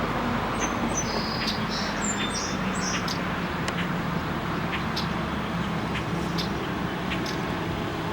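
A bird chirping in a quick series of short high notes during the first three seconds, over steady outdoor traffic noise with the low hum of a vehicle engine.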